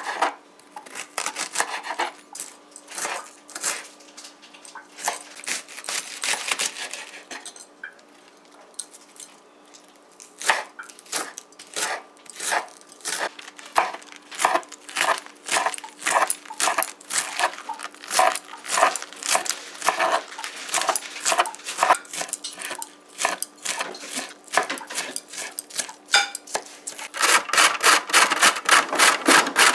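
Kitchen knife chopping cabbage and leafy greens on a wooden cutting board: quick sharp taps at an uneven pace, pausing for a few seconds early on. Near the end, a carrot grated on a metal box grater in fast rasping strokes.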